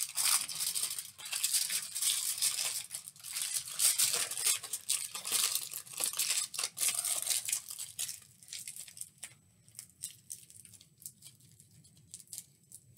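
Tin foil crinkling and crackling as it is wrapped and pressed around a styrofoam ball by hand; dense for the first several seconds, then thinning to sparse crackles.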